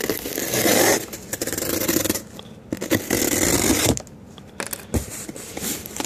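Clear packing tape being peeled and torn off a cardboard shipping box in several rasping pulls, with a short thump near the end.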